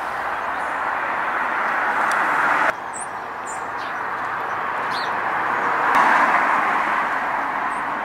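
Outdoor rushing background noise that swells and fades, breaking off abruptly about three seconds in, with a few faint, short bird chirps.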